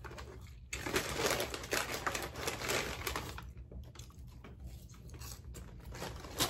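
Paper fast-food bag crinkling and rustling as it is handled, loudest for a couple of seconds from about a second in, with a sharp click near the end.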